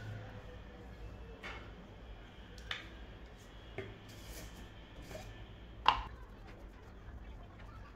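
Spoon and plate handling: a few scattered light clicks and taps over a steady low hum, with the sharpest knock about six seconds in.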